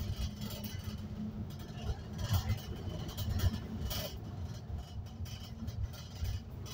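Inside a moving bus: low engine and road rumble, with a steady hum that fades out near the end.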